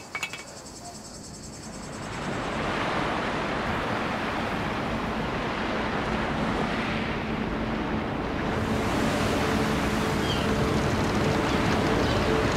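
The sea: a steady wash of surf that fades in about two seconds in and grows a little louder later on. A faint, held low tone comes in during the second half.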